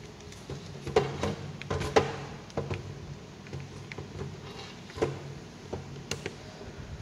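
Scattered light clicks and taps of plastic and wire being handled as a wire is fitted to the terminals of a contactor and its thermal overload relay, irregular and spread through, over a faint steady low hum.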